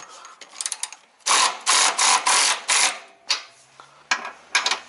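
Cordless 3/8-inch ratchet worked by hand: about five quick back-and-forth strokes of rapid pawl clicking in the middle, with a few single clicks before and after. The nut is being broken loose manually because the 12-volt ratchet's motor could not loosen it.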